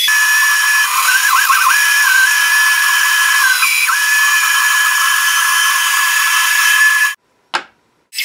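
Bandsaw running as it cuts out small letters: a steady high whine over hiss that wavers in pitch about a second in. It cuts off abruptly near the end, followed by a single click.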